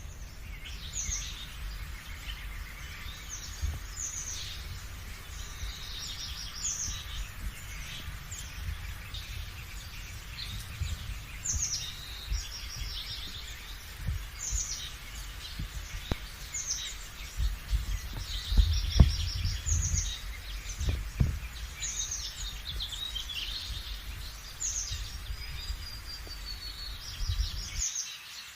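Wild birds chirping and calling, short high calls repeating throughout, with one longer drawn-out whistle near the end, over a steady low rumble.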